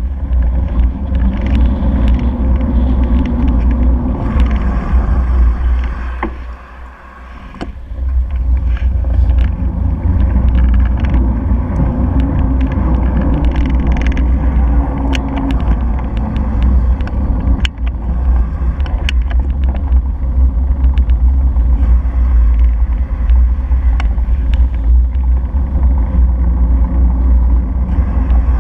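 Wind and road rumble on a handlebar-mounted camera as a bicycle rides along a street among car traffic, with scattered sharp knocks and rattles from bumps in the road. The rumble dips briefly about seven seconds in.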